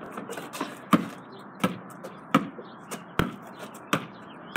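A basketball being dribbled on the ground, six bounces at an even pace of about one every 0.7 seconds.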